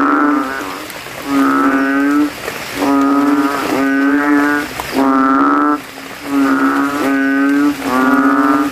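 Kintel frog (banded bullfrog) calling over and over, with about one loud, bassy call a second, each under a second long, as its throat sac swells.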